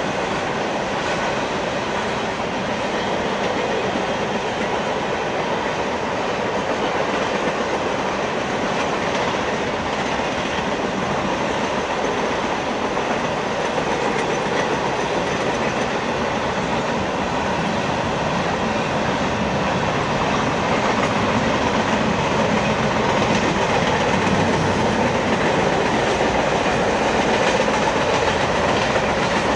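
Double-stack intermodal freight train passing: the steady run of steel wheels on rail as the loaded container well cars roll by, growing a little louder in the second half.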